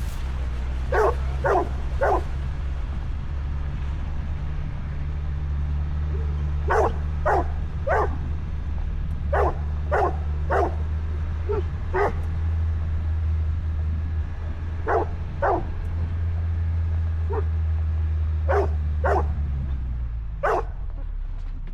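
A dog barking repeatedly in short groups of two or three, over the steady low drone of the Ford Bronco's engine running. The engine drone stops near the end.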